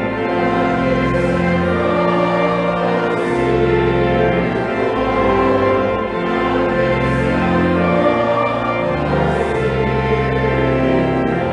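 A hymn sung by a choir with instrumental accompaniment, held chords over a slow-moving bass line: the entrance hymn at the start of Mass.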